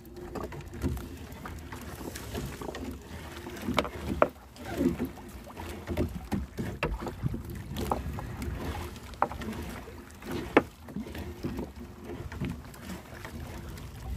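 A gill net being hauled and worked in a small wooden fishing boat: scattered sharp knocks and clicks against the hull over water sounds and a steady low hum.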